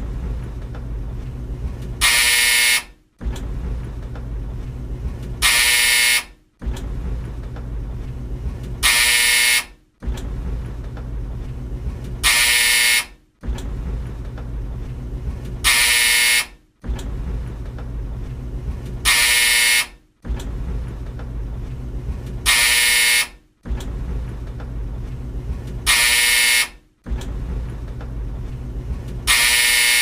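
Old tumble dryer running with a low, steady hum, cut into about every three and a half seconds by its loud, harsh buzzer sounding for under a second. Each buzz is followed by a brief silence before the running hum resumes, and the cycle repeats evenly nine times.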